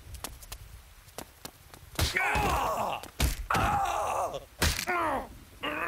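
A man groaning and grunting in pain, in falling moans that start about two seconds in, with two sharp thuds of blows between them, as in a cartoon beat-down.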